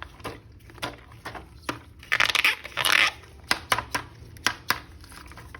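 Plastic toy packaging being handled and opened: scattered clicks and taps, with two short, louder crinkling rustles about two and three seconds in.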